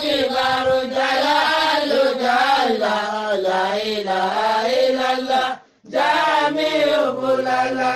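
A man chanting an Islamic dhikr refrain in long, drawn-out notes that waver and slide in pitch. The chant breaks off for a moment a little before six seconds in, then carries on.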